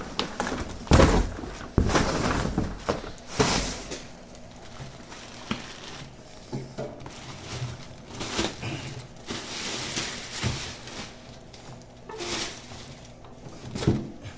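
Handling noise as a portable generator is lifted out of its packaging: irregular thumps and knocks with rustling of packing material, busiest and loudest in the first few seconds, then scattered quieter knocks.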